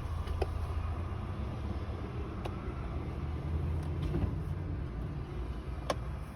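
Steady low rumble of a car, with four or five sharp, light clicks spread through it as an infant car seat and its base are handled and adjusted.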